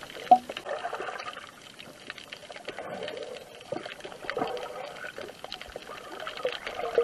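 Underwater water sounds heard through an action camera's waterproof housing: muffled sloshing and bubbling with scattered small clicks, and one sharp knock just after the start.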